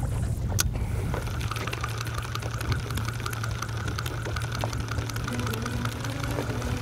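Spinning reel being cranked while reeling in a hooked mahi: a steady whir with fine rapid clicking, over a low steady rumble. A single sharp click about half a second in.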